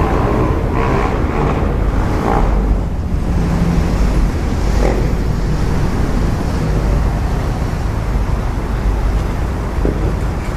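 Steady low rumble and hiss on a passenger ferry's open deck: the ship's engines running, with harbour traffic noise from the quay.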